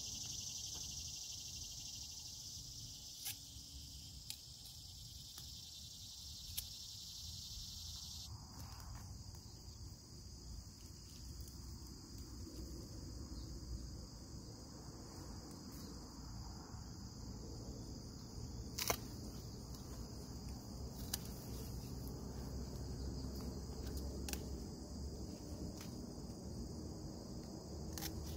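Steady outdoor insect chorus, high and hissing, that changes character abruptly about eight seconds in. A few sharp clicks are scattered through it, the loudest about nineteen seconds in.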